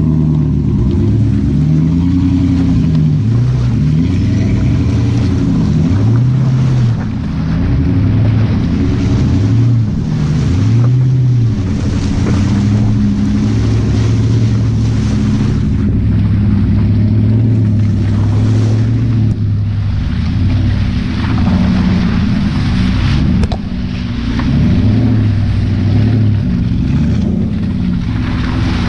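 Jeep Grand Cherokee 4.7 L V8 running through a Flowmaster muffler, revving up and down again and again while driving in mud, with a rushing of mud and water under the tyres.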